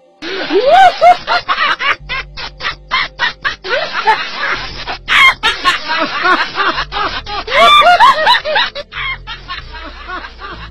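Laughter in rapid, choppy bursts that rise and fall in pitch, over background music with a low bass line.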